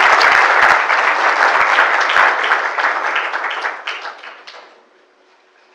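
Audience applauding, many hands clapping at once, dying away about four to five seconds in.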